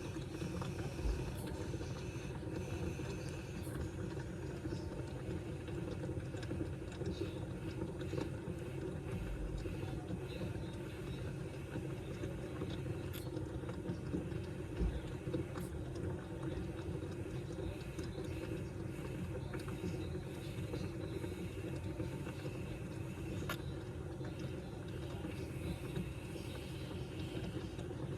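A person hiccuping now and then, short sharp sounds several seconds apart, over the steady low rumble of a moving vehicle.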